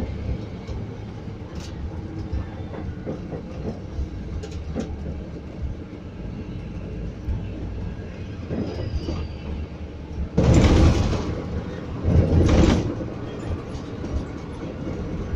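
Scania coach driving, its engine and road noise a steady low rumble inside the cabin. About ten and twelve seconds in come two loud rushes of noise, each under a second long.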